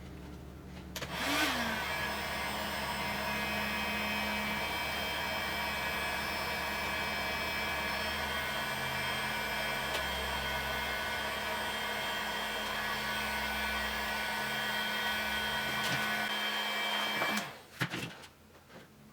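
Heat gun blowing steadily as hard tubing is softened for bending: the fan motor spins up about a second in with a rising whine, runs at an even pitch, and is switched off near the end.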